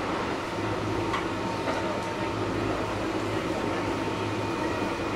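Steady hum inside a Kintetsu 1230 series electric train car, its air conditioning and onboard equipment running, with a couple of faint clicks about a second in.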